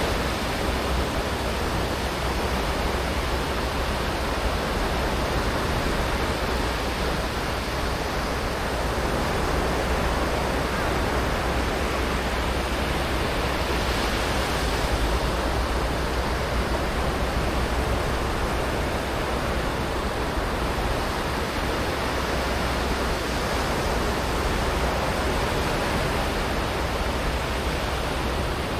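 Sea waves washing onto a beach, a continuous surf noise that swells and eases slightly, with a steady low rumble underneath.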